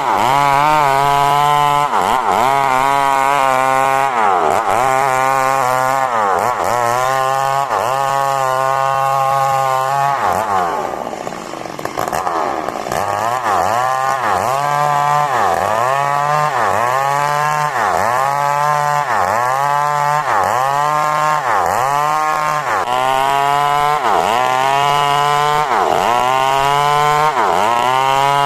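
Two-stroke chainsaw cutting coconut wood lengthwise into boards, its engine pitch sagging and recovering over and over as the chain loads in the cut. About ten seconds in it eases off briefly, then goes back to full cutting.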